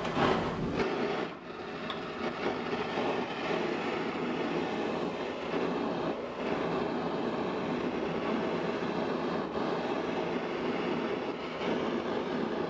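Mouth-blown propane blowpipe torch burning with a steady rushing noise. The flame is held on a strip of pure copper to anneal it, enveloping the metal in a reducing flame so it does not oxidize.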